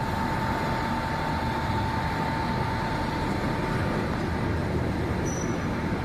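Factory machinery running steadily: a low rumble with a constant mid-pitched whine over it, and a short high squeak about five seconds in.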